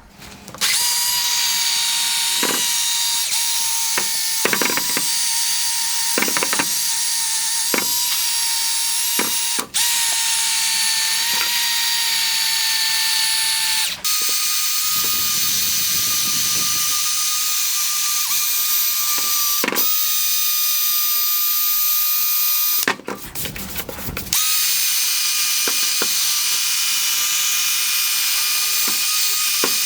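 Drill spinning a P500 sanding disc against a plastic headlight lens, a steady high motor whine. It lets off and restarts three times, the longest stop lasting about a second and a half.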